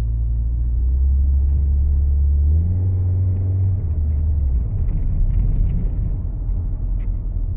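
Chevy S10 pickup's engine through a Flowmaster side-dump exhaust, heard inside the cab while driving: a loud, steady low drone. Its pitch steps up about two and a half seconds in, then gives way to a rougher low rumble from about four and a half seconds.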